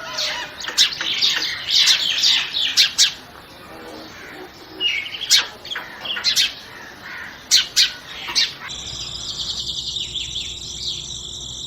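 Birds chirping in short, sharp high calls. About two-thirds of the way through, a steady high chirring sets in and continues.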